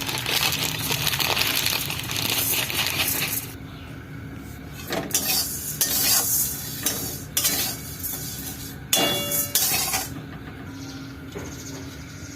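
Cooking in a pan: a sizzle for the first few seconds, then a metal spoon clinking and scraping against the pan a handful of times, with one ringing clink about nine seconds in.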